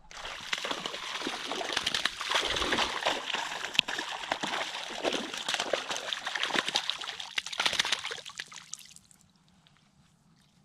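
Water splashing and sloshing in quick, irregular bursts for about nine seconds, then stopping.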